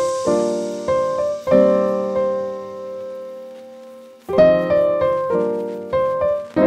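Background piano music: gentle chords that ring out and fade, thinning to a lull about halfway through before fresh chords come in.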